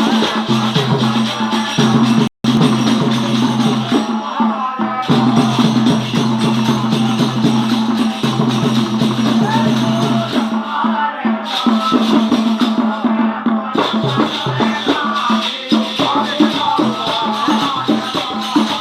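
Bundeli devotional folk music (a bhagat to the mother goddess) with a rattling shaker beat over a steady low drone, cutting out briefly once about two seconds in.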